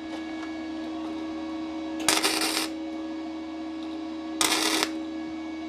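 Flux-cored MIG welder on 0.7 mm sheet steel, turned down to 70 A: two short tack welds, each a burst of arc crackle about half a second long, a couple of seconds apart. A steady hum runs underneath.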